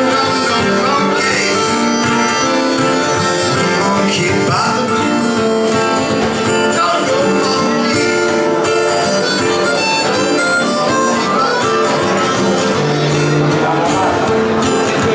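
Live acoustic guitar and harmonica playing together, with a man singing over them.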